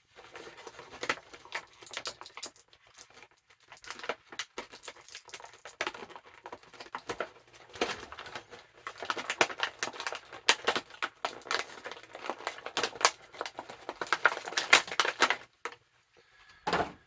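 Crackling and rustling of an action figure's cardboard box and plastic packaging being opened and handled, with many small clicks and snaps. It stops about a second and a half before the end, then comes one short burst of handling.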